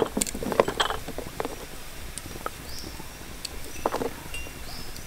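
Light knocks and clicks of a cleaver and garlic cloves being handled as garlic is peeled and set down on a wooden chopping block. There is a quick cluster in the first second and one more knock about four seconds in.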